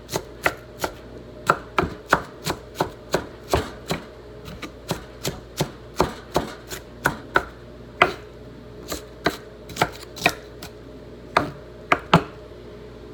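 Knife chopping vegetables, a sharp knock every third to half second at an uneven, steady working pace.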